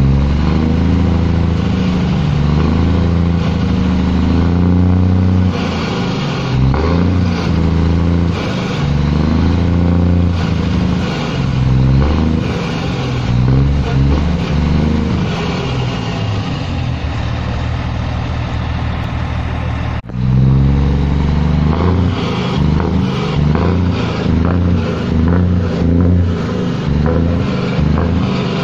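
Volvo FH12 460's 12-litre straight-six diesel through a straight-pipe exhaust, run at idle and revved again and again in short blips, the pitch rising and falling with each rev.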